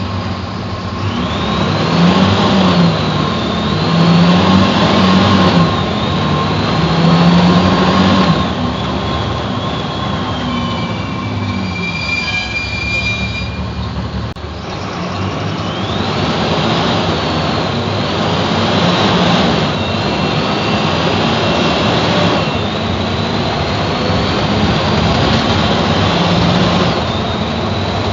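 Mercedes-Benz OF-1724 bus's OM 926 LA six-cylinder turbo-diesel engine accelerating through several gears, with a high whine that climbs with the revs and drops back at each gear change. About a third of the way in it eases off for a few seconds, then accelerates through the gears again.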